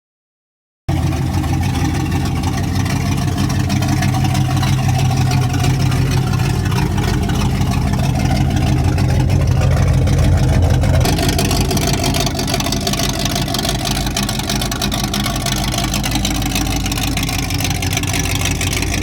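Car engine running steadily and loudly, its sound changing abruptly about eleven seconds in.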